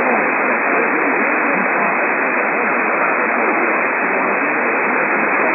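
Steady hiss of radio static, as from a receiver picking up a weak or absent signal. It has a thin, narrow sound with nothing above the low treble.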